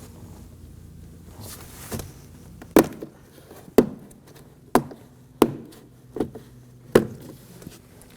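Plastic trim clips on a Toyota Corolla's front door panel popping loose as a trim piece is pulled away from the panel. About seven sharp snaps, roughly one a second, starting about two seconds in.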